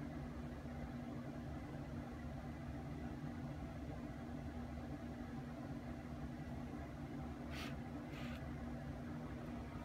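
Steady low electrical hum of background room noise, with two brief soft rustles near the end as a hand moves over the phone.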